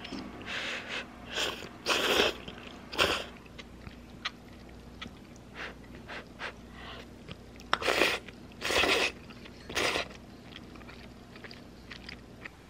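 A person eating thick noodles close to the microphone: several short, loud bursts of slurping with quieter chewing between.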